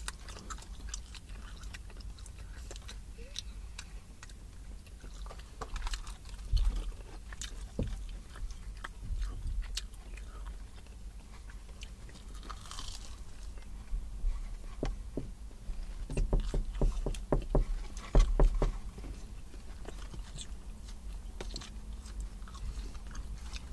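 Close-up biting and chewing of a fried, battered cheese corn dog: scattered short crunches, with a quick run of them about two thirds of the way through.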